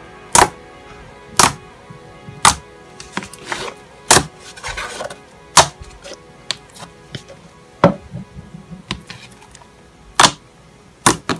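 Pink slime pressed and poked by hand, giving sharp pops and clicks as trapped air bursts, at irregular intervals of about a second or two, with softer squelching in between.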